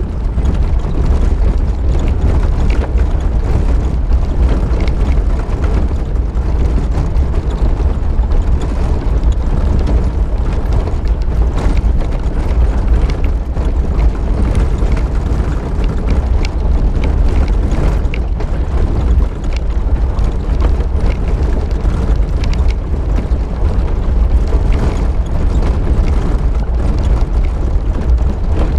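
Suzuki SJ413 driving along a rough dirt track: a loud, steady low rumble of engine, tyres and wind with frequent small knocks and rattles as it bounces over the ruts and gravel.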